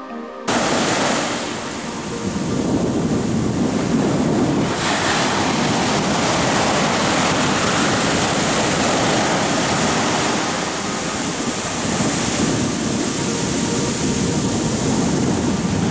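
Ocean surf breaking and washing up a sandy beach: a steady rush of waves that starts abruptly about half a second in and swells and eases gently.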